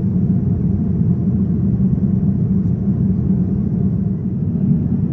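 Steady low rumble of a Boeing 787-10's cabin in flight, the engine and airflow noise heard from a window seat.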